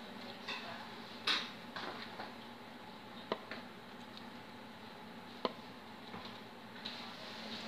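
A few light clicks and knocks of kitchen utensils and dishes as sauce is handled, the loudest about a second in, over a faint steady hum.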